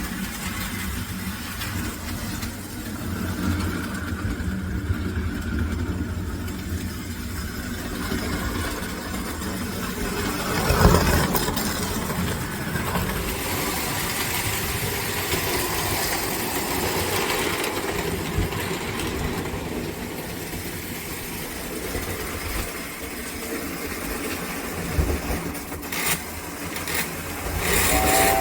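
American Flyer 322 model steam locomotive running on the track with a short train: a steady electric motor hum under the rumble and clatter of wheels on rail, with a brief louder clatter about eleven seconds in.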